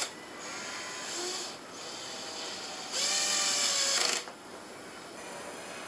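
Cordless drill-driver driving into a vinyl-covered plywood board: a short, quieter run early on, then a louder run with a motor whine from about three seconds in that winds down and stops about a second later.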